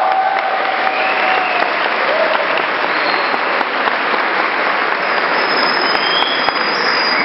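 Audience applauding at the end of a live song, steady clapping with a few cheers and whistles over it.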